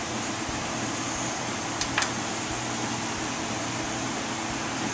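Steady background hiss with a low hum, like a running fan. About two seconds in there is a small click as the metal oil pump parts are handled.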